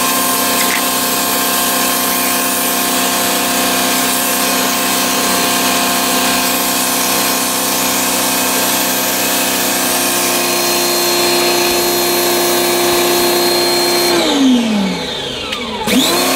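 Tornado Tools electric pressure washer's motor and pump running with a steady hum. About fourteen seconds in it spins down as the trigger is released, then kicks back on near the end: the unit cuts in and out with the trigger.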